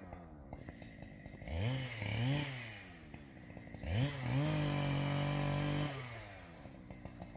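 Husqvarna chainsaw ticking over at idle, blipped twice in quick succession, then revved and held at a high steady speed for about two seconds before dropping back to idle.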